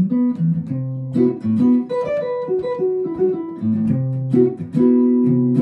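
Archtop hollow-body electric guitar played clean with a pick: a flowing jazz line of single notes, several left ringing together. It plays the four-note C, E, F sharp, B pattern that gives a Lydian, sharp-11 sound over a C major 7 chord.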